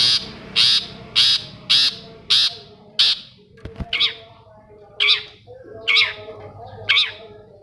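Long-tailed shrike (cendet) giving a series of about ten harsh, rasping calls. They come quickly at first, about two a second, then slow to roughly one a second.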